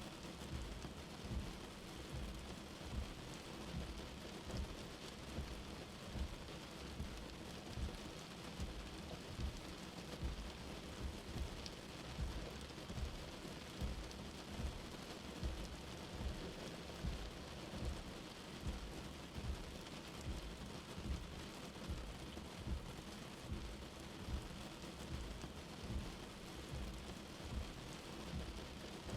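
Steady rain falling, with a faint, even hum of night insects above it. Heavier drops strike a surface with low thuds about once a second.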